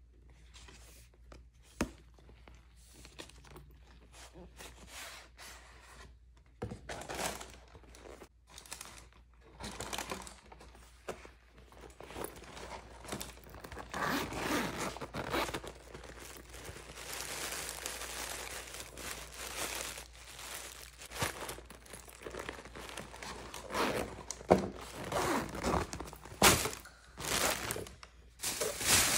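Packaging being handled: irregular crinkling and tearing of paper or plastic, with scattered clicks and knocks, busier and louder in the second half.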